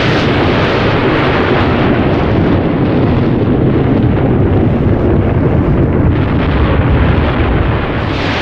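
Loud, continuous rolling thunder from a storm, a deep rumble with no breaks, easing slightly near the end.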